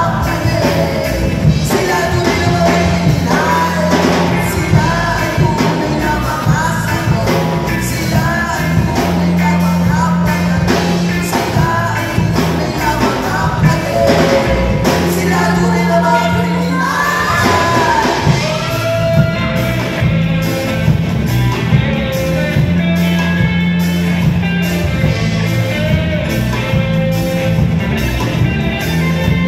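Live band playing a cover song: electric guitars, bass guitar, keyboard, drum kit, saxophone and trumpet under a lead vocal sung into microphones.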